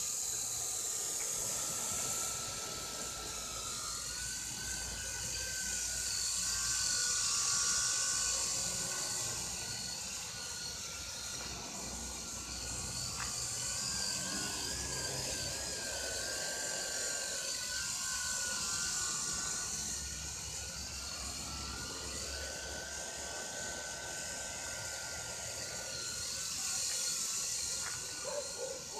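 Homemade quadcopter hovering just above the ground: its four motors and propellers give a steady high whine over a hiss of rushing air, the pitch wavering up and down as the motor speeds keep shifting.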